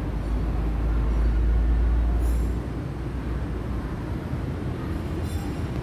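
Industrial woodworking machinery running: a steady low rumble, loudest in the first half, with two brief high-pitched sounds, about two seconds in and near the end.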